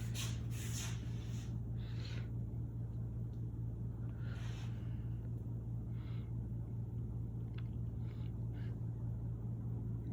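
Fanimation Blitz DC-motor ceiling fan running steadily at a low speed setting, with a constant low hum and a few faint airy swishes.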